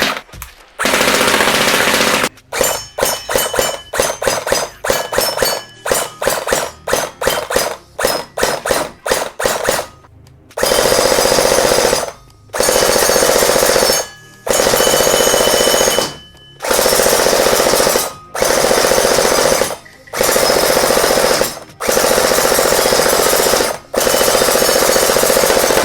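Electric gel blaster firing, its motor-driven gearbox cycling rapidly. Over the first ten seconds come many short bursts, then long full-auto bursts of about two seconds each with brief pauses between them.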